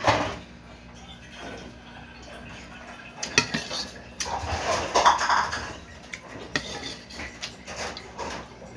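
Close-up eating sounds: scattered clicks and knocks on a plate as fish and rice are eaten by hand, with a sharp knock at the start and a denser run of noise a little past the middle.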